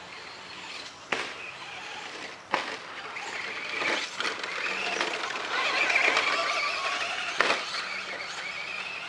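Radio-controlled Traxxas Slash short-course truck driving on a dirt track, its motor and drivetrain whining higher and louder around the middle, then easing off. A few sharp knocks along the way.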